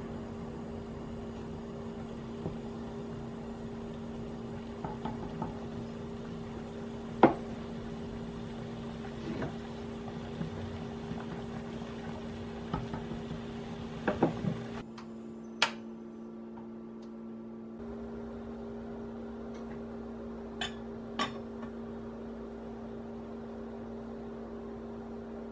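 Frozen black tapioca pearls boiling in a stainless-steel saucepan, a wooden spatula stirring and now and then knocking on the pan, the sharpest knock about seven seconds in. A quick cluster of metal clanks around fourteen seconds in as the lid goes on, then a couple of light clicks from the covered, simmering pot, over a steady low hum.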